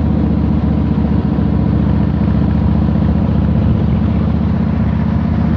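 Motorcycle engine running steadily while the bike cruises at an even speed, heard close up from the bike as a constant low, rapidly pulsing drone.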